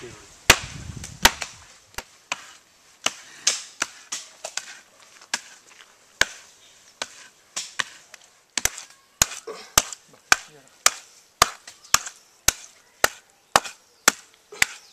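A wooden paddle beating the fresh red mud of a wall being built in the traditional way, packing and evening the wall face. It makes a string of sharp knocks, irregular at first, then a steady beat of about two a second in the second half.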